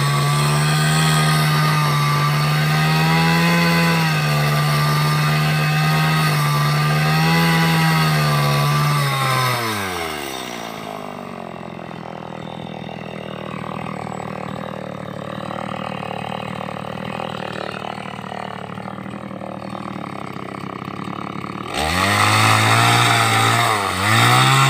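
Stihl two-stroke chainsaw running at full throttle, its pitch wavering slightly as it cuts a timber beam. About ten seconds in the throttle is released and it falls to a much quieter idle. Near the end it revs back up to full speed, dipping once briefly.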